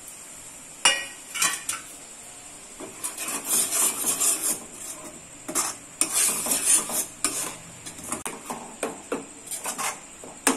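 Metal spoon stirring and scraping a thick, sticky mixture of ginger paste and sugar syrup around a steel pot, in irregular strokes that come thick and fast in the middle and again near the end. This is the long stirring stage of making ginger candy, the paste cooking down in the syrup and slowly darkening.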